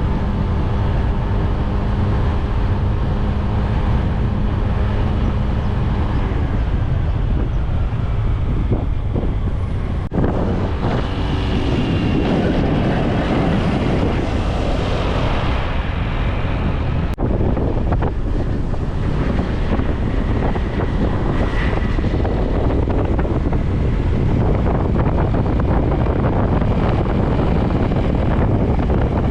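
Steady wind buffeting the microphone over the running engine of a moving vehicle, with two abrupt breaks where the sound cuts.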